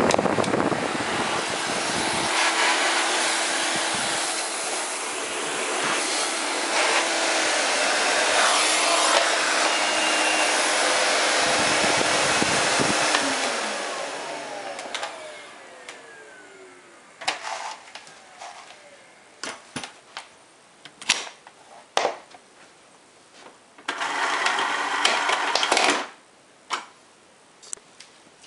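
Miele Silverstar S280i canister vacuum cleaner (1200 W motor) running with a steady hum, its level dipping and rising a little while the power-control buttons are pressed. About thirteen seconds in it is switched off and the motor winds down with a falling whine, followed by scattered clicks and knocks and a burst of noise lasting about two seconds near the end.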